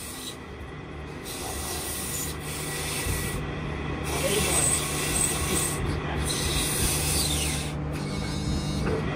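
Sandpaper rubbing against a brass-inlaid wooden bowl spinning on a belt-driven lathe, over the steady hum of the lathe's drive. The rubbing grows louder about three seconds in as more pressure goes on.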